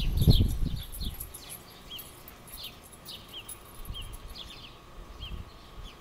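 Sparrows chirping over and over, short falling chirps about two a second. A low muffled rumble sounds in the first second.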